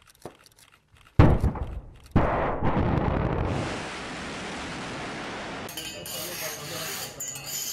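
Logo-intro sound effects: two heavy booms about a second apart, followed by a long rushing noise like a rocket launch that fades to a steady hiss.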